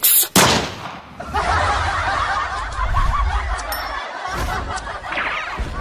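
A short loud noise at the start. Then about four seconds of many people laughing together, which fades near the end.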